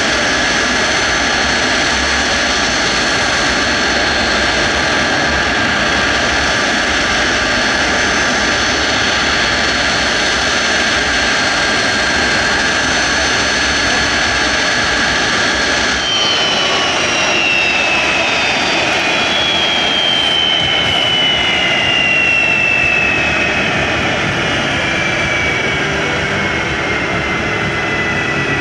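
Boeing 747SP's four Pratt & Whitney JT9D turbofans running at taxi power: a loud, steady jet roar with high whining tones. About halfway through, the sound changes abruptly and a high whine then slides slowly down in pitch.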